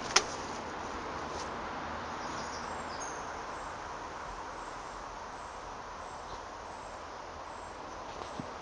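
Steady outdoor background noise with faint, evenly repeated high insect chirps, and one sharp click just after the start.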